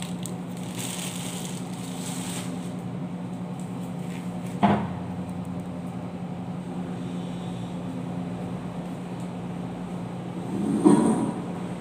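Steady electric hum of shop appliances, with a sharp knock about five seconds in and a louder clatter near the end as a plastic crate is handled.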